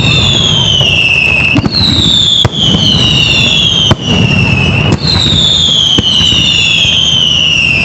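Whistling fireworks in a display: a string of loud whistles, each falling in pitch over about a second, overlapping one after another, with sharp bangs between them.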